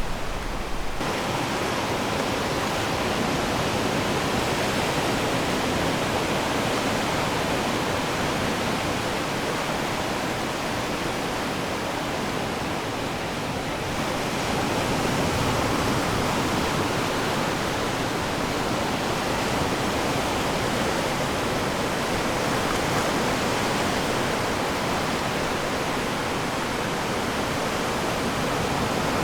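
Steady rush of ocean surf breaking on the shore, an even hiss with no distinct wave crashes. The sound shifts slightly about a second in and again about halfway.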